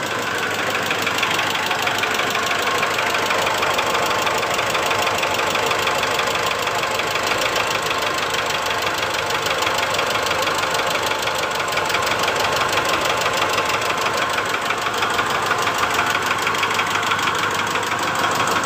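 Mitsubishi Strada Triton diesel engine idling rough, with a rapid, steady tak-tak-tak knock. The knock carries on with injector number 3 cut out, so that cylinder is not its cause; the mechanic comes to suspect injector number 1.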